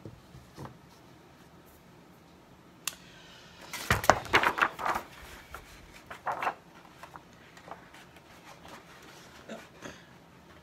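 Handling noises: a sharp click about three seconds in, then a burst of knocks and rustling about a second later, starting with a dull thump, and a few softer taps afterward.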